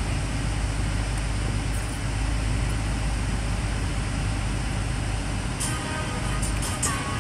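Steady rumble and hiss of a moving car heard from inside the cabin, with a few light clicks near the end.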